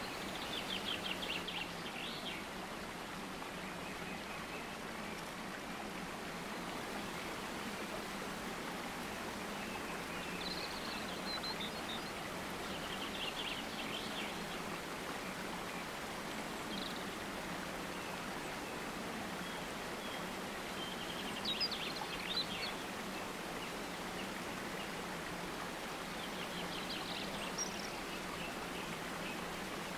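Steady rush of flowing water, with birds chirping in short bursts every few seconds.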